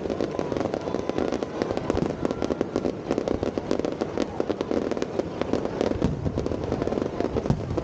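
Fireworks display going off: a rapid, continuous string of pops, crackles and bangs with no pause.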